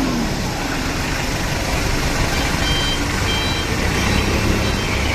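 Truck engine sound effect running steadily: a low rumble under a dense hiss.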